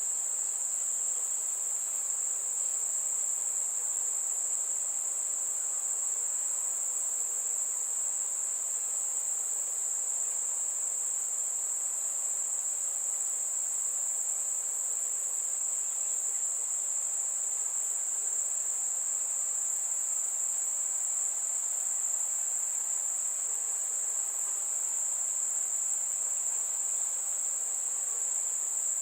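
Crickets trilling in a steady, unbroken high-pitched drone, with a faint hiss beneath.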